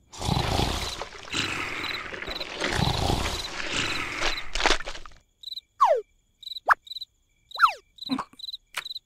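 Cartoon sound effect of a thin stream of liquid pouring down and splattering for about five seconds, then cutting off. Crickets chirp steadily about twice a second. Near the end come two quick falling squeaky tones and a few sharp clicks.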